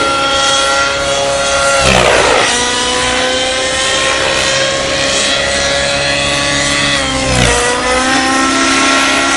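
Align T-Rex 700N nitro RC helicopter in flight, its engine and rotor giving a loud, steady high whine. Twice, about two seconds in and again near the end, the pitch dips sharply and then climbs back.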